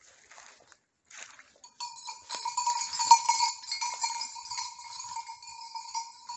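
Leaves and brush crackling in short bursts, then from about two seconds in a hunting dog's collar bell ringing continuously, growing louder and softer by turns.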